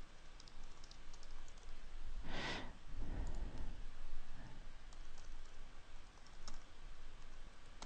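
Faint computer keyboard typing: scattered light key clicks. One short breathy whoosh comes about two and a half seconds in.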